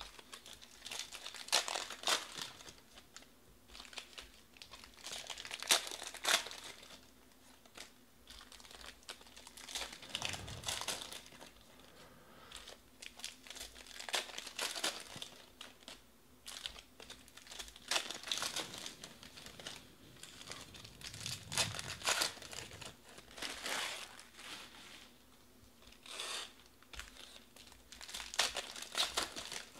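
Foil wrappers of 2020 Panini Prizm Baseball card packs crinkling and tearing as they are ripped open by hand, in irregular bursts every second or two.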